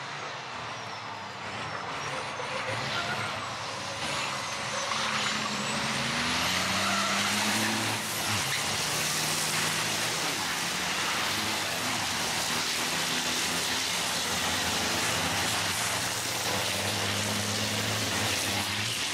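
Several racing trucks' turbodiesel engines running hard as they pass on the circuit. The sound grows louder over the first several seconds, and the engine notes rise and fall with throttle and gear changes. A faint high whine climbs in pitch early on.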